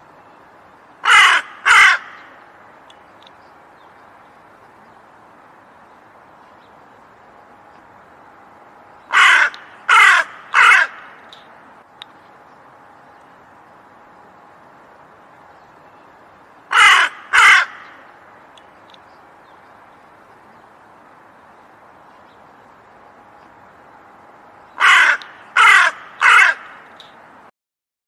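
A crow cawing in short groups: two harsh caws, then three, then two, then three, the groups about seven to eight seconds apart, over a faint steady hiss.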